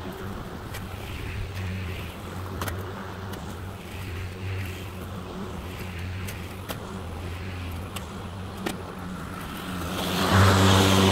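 EGO 56-volt cordless electric lawn mower running while cutting grass: a steady low hum from across the lawn that grows much louder about ten seconds in as the mower comes close.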